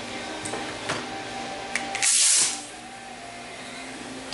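A short, loud hiss lasting about half a second, about two seconds in, after a few light clicks, over a steady faint hum.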